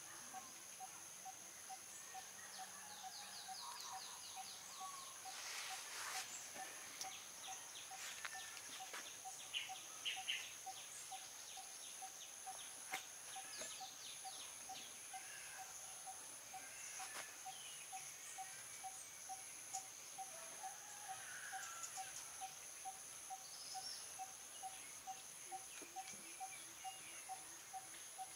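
Outdoor ambience: a steady high drone of insects, a faint note repeating evenly throughout, and scattered short bird chirps, a few louder ones around ten seconds in.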